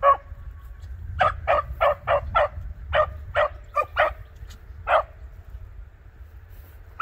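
Beagles giving short barks on a scent line, about a dozen in quick runs, stopping about five seconds in.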